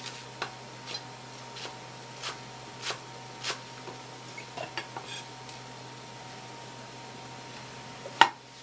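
Kitchen knife chopping thin green onions on a wooden cutting board, a sharp knock about every half second, followed by a few softer small knocks. Near the end comes one much louder single knock.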